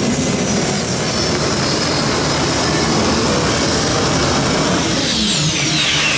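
Modified pulling tractor's gas turbine engines running flat out with a loud, steady high whine, then spooling down in a steeply falling whine from about five seconds in as the pull ends.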